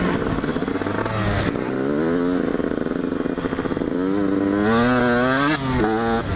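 Two-stroke engine of a 2004 KTM 125 SX motocross bike running hard at race pace, its pitch climbing as it accelerates through the gears, with short breaks at the shifts about one and a half and five and a half seconds in.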